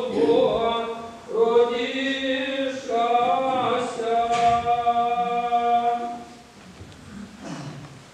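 Several voices singing an Orthodox liturgical chant together, holding long notes and closing on a sustained chord about six seconds in. After that the sound drops to a faint, reverberant hush.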